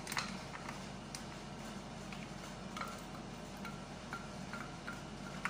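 A wooden spatula tapping and scraping inside a glass blender jar to empty blended paste into a pot: scattered light clicks and short clinks over a steady low hum.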